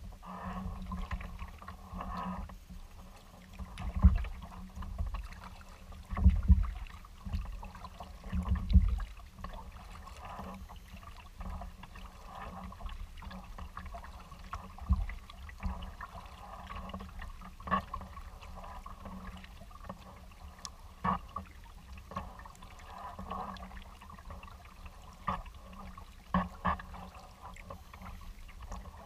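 Kayak paddling on open water: paddle strokes splashing and water lapping against the hull. There are several loud low thumps in the first ten seconds and scattered light knocks after that.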